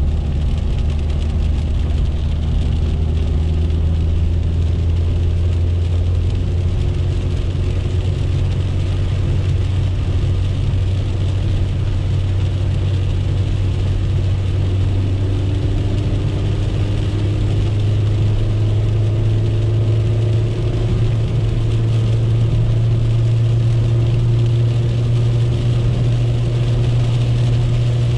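1997 Chevrolet Corsa Wind's fuel-injected engine droning steadily, heard from inside the cabin at highway speed. The hum rises gradually in pitch past the middle as the car speeds up, over a constant hiss of heavy rain and wet tyres.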